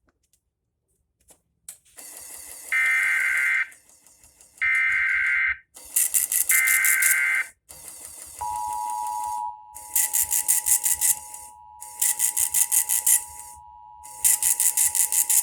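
Emergency Alert System tones: three short screeching bursts of SAME digital header data, a second apart. They are followed by the steady two-tone attention signal, which runs about eight seconds. Over the attention signal, a harsh rapid pulsing buzz comes and goes in blocks of about a second.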